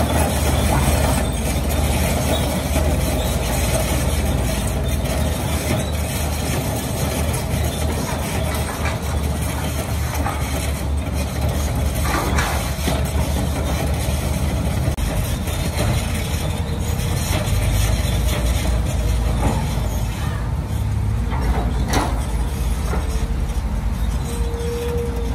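Diesel engine of heavy construction machinery running steadily, with a few brief knocks and clanks.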